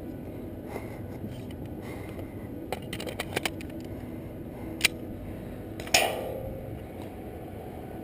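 Scattered sharp clicks and knocks of airsoft play, a quick cluster of several a few seconds in and the loudest about six seconds in, ringing briefly afterwards.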